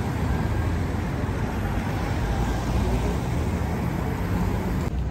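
Street traffic: cars and taxis driving past close by, a steady mix of engine and road noise.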